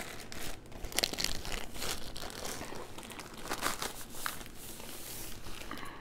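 Clear plastic wrapping crinkling and rustling in irregular bursts as it is pulled off a rolled diamond painting canvas.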